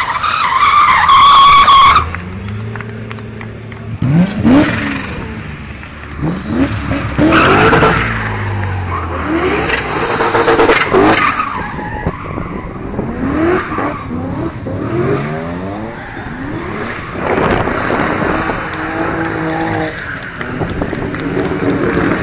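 Rally cars accelerating hard away one after another, engines revving up and dropping through gear changes. Tyres squeal loudly for about the first two seconds, and again briefly about ten seconds in.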